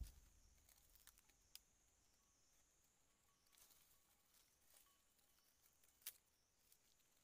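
Near silence, broken by faint clicks and rustling of dry bamboo leaves and twigs handled close by, with a sharper click near the start and another about six seconds in. A faint high wavering whine sits underneath.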